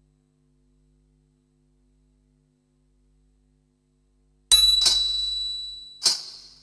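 Silence, then about two-thirds of the way in a small bell is struck twice in quick succession and rings with a high tone, then is struck once more near the end and fades away.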